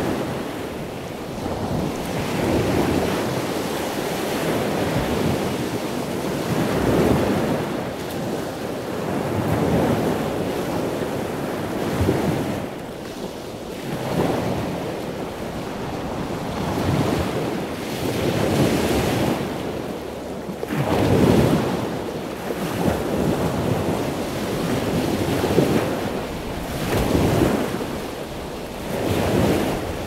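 Ocean surf breaking and washing up the beach, the noise swelling and ebbing every two or three seconds, with a low wind rumble beneath.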